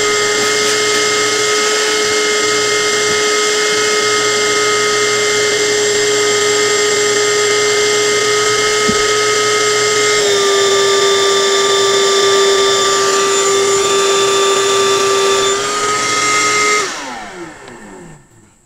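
Electric power tool motor running steadily with a high whine. Its pitch drops slightly about ten seconds in, then it is switched off near the end and winds down.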